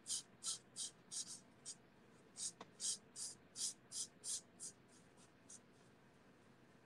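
Stampin' Blends alcohol marker tip rubbing back and forth on cardstock in short colouring strokes, about three a second, dying away about five seconds in.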